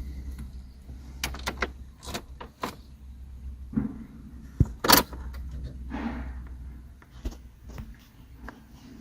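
A series of sharp clicks and knocks over a low steady hum, the loudest a pair of knocks about five seconds in.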